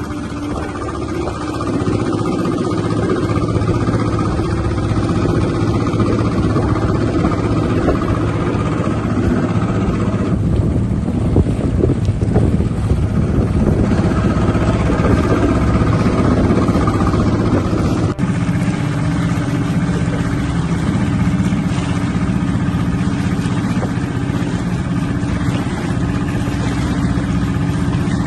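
Outboard motor of an inflatable rescue boat running under way, a steady engine drone with the rush of wind and water over it. It gets louder about two seconds in.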